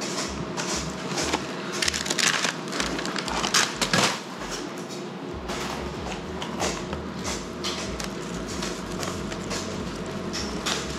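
Plastic bag of seafood breading mix crinkling and crackling as it is handled, loudest in the first four seconds, with a few more crackles near the end as the breading is shaken out of it into a bowl.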